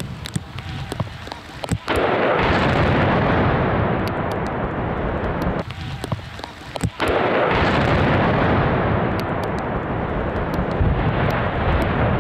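Explosive demolition charges on a motorway bridge going off: a few sharp cracks, then a long rolling rumble, twice over.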